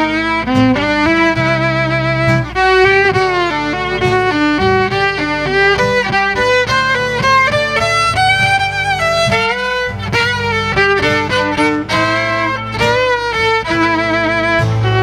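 Fiddle playing a melodic instrumental passage with vibrato over a steady low accompaniment, closing out a sung ballad.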